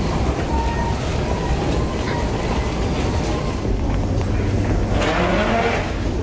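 Steady low rumble of a vehicle in motion, heard from inside, with a brief swell of hissing about five seconds in.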